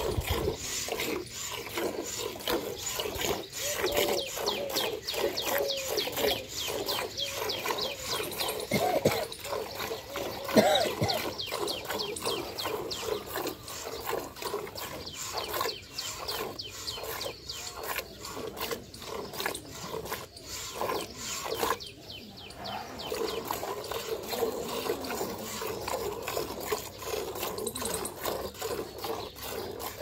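Jets of milk squirting in a quick steady rhythm into a steel bucket partly full of milk, as a buffalo is milked by hand with two teats pulled in turn. A short sharp sound stands out about ten and a half seconds in.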